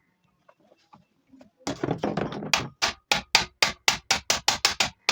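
A rapid series of hammer blows, about four or five a second, preceded by a short stretch of rattling knocks. Nothing is heard for the first second and a half.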